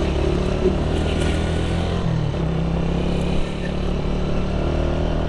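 Honda CG 125's single-cylinder four-stroke engine running under way, heard from the rider's seat with wind noise on the microphone. Its note dips briefly and recovers about two seconds in.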